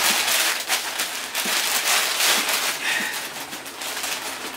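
Plastic bags crinkling and rustling as they are handled and rummaged through, a dense run of crackles.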